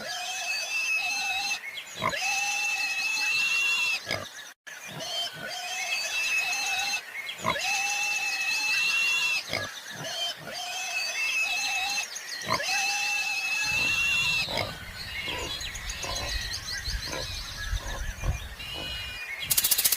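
An animal calling over and over: long, level, high-pitched squeals about every two seconds, with short clicks in between. A low rumble joins in during the second half.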